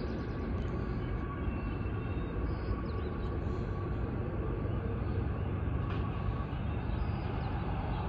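Steady low rumble of outdoor background noise.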